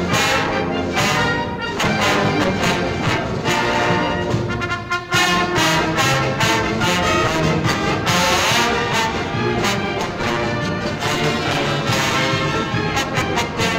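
Brass band playing an instrumental passage of music from an old LP recording, with a brief dip about five seconds in.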